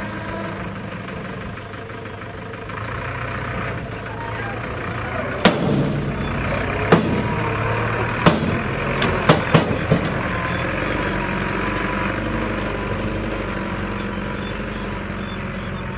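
Heavy construction machine's engine running steadily, with six sharp knocks, one just after five seconds in and the rest close together up to about ten seconds in.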